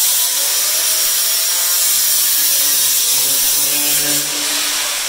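Angle grinder with a cutting wheel cutting through aluminum diamond plate: a loud, steady high hiss with a wavering whine, easing off a little near the end.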